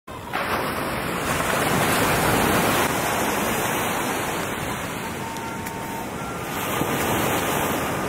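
Steady rushing noise of ocean surf, with wind blowing on the microphone.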